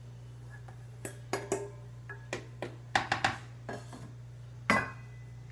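Stainless steel bowls clinking: a plastic spoon knocking against the bowls and the bowls set down on a steel counter, about ten sharp clinks with a short metallic ring, loudest near the middle and once near the end.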